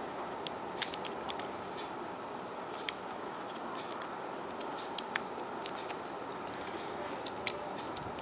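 Light plastic clicks and taps of Lego Technic parts handled by fingers: a quick cluster of several clicks about a second in, then scattered single clicks, over a steady low hiss.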